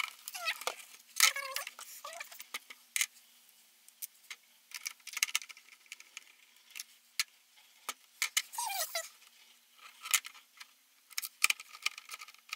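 Scattered plastic clicks, taps and knocks as an LCD monitor's plastic back cover and stand are handled and worked with a screwdriver during reassembly, with a few short squeaks near the start and again about two-thirds of the way through.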